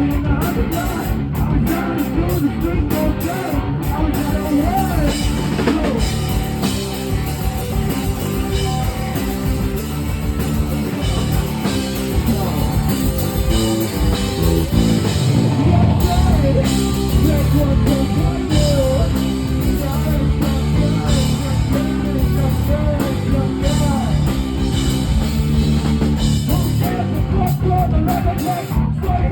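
Rock music with a drum kit, guitar and singing, playing continuously.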